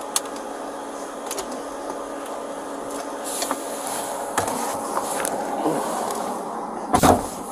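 Steady mechanical hum with scattered light clicks, and one loud thump near the end.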